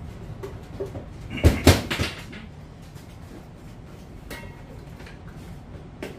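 A quick cluster of sharp knocks and clacks about one and a half seconds in, then a few lighter clicks later, from fishing reels and line spools being handled on a workbench.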